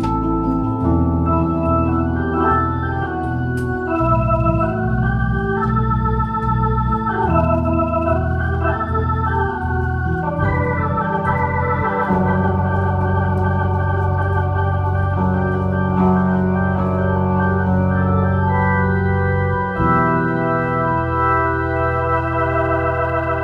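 Instrumental keyboard music with an organ sound: held chords that change every few seconds over a steady low bass, getting a little quieter near the end.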